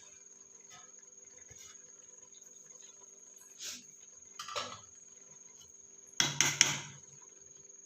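Metal spoon clinking and knocking against a steel cooking pot while cooked rice is spooned in as the top layer of a chicken dum biryani: two light clatters, then three sharp knocks near the end. A faint steady high-pitched tone runs underneath.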